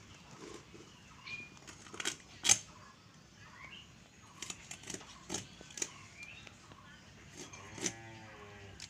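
Sharp clicks and knocks of fish flesh and bone being cut against a boti, a curved blade fixed on a floor stand, coming at irregular intervals with the loudest about two and a half seconds in. Faint short chirps sound between the cuts.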